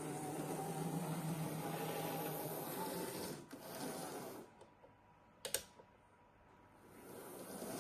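Small N gauge model locomotive motor whirring, with its wheels clattering on the track. About halfway through the sound dies away, there is a brief sharp click, and then the running builds up again near the end.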